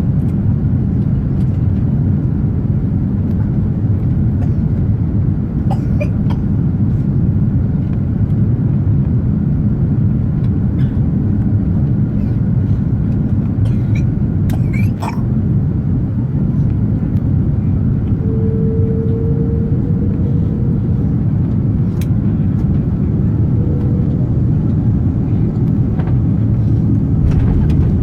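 Steady low rumble of an Airbus airliner's engines and airflow heard inside the passenger cabin during the landing, with a few faint clicks and a short steady tone about two-thirds of the way through.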